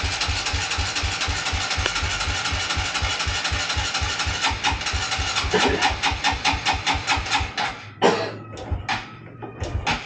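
A small motorcycle engine being cranked by its electric starter: a steady whir with low thuds about four or five times a second, not catching. The cranking stops about eight seconds in, followed by a few separate knocks. The engine is reluctant to start after standing unused for a long time.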